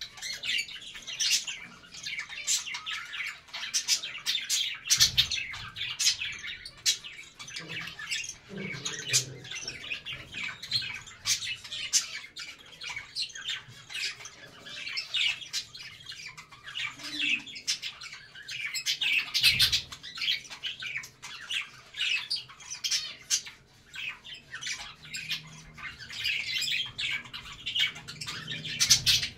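A group of budgerigars chattering and squawking, with many short, high calls overlapping without pause and two dull thumps along the way.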